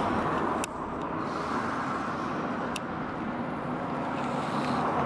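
Steady vehicle rumble, with a light click just over half a second in and another a little under three seconds in.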